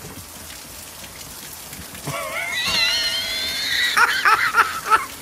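Steady rain pattering. About two seconds in, a dog starts a high, wavering whine that breaks into short pulses near the end.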